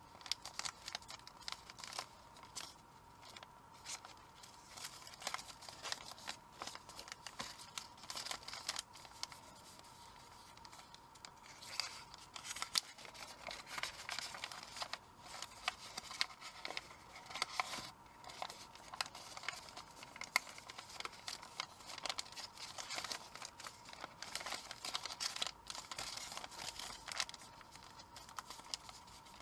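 Origami paper rustling and crinkling as it is folded and shaped by hand, with frequent short crackles as flaps are opened and creases pressed.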